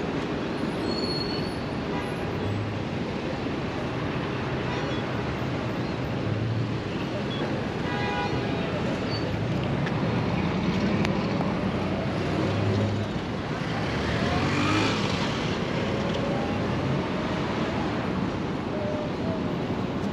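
Busy city street traffic: cars, taxis and buses passing, a continuous rumble of engines and tyres. A brief high pitched tone comes about eight seconds in, and the traffic swells louder around fourteen seconds in as vehicles pass close.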